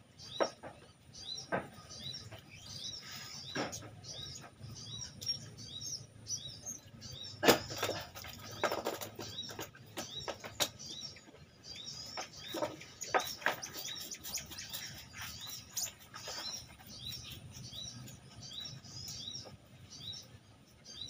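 A steel knife scraping and knocking on a wooden chopping block as small papuyu fish (climbing perch) are scaled and cut, with scattered sharp knocks, the loudest about seven seconds in. Small birds chirp repeatedly over it.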